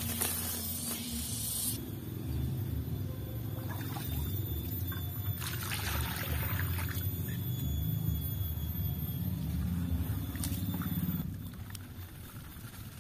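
A low steady rumble runs through most of it and fades out about two seconds before the end. Plants rustle and tear at the start, and about six seconds in water splashes as it is poured into an earthenware pan.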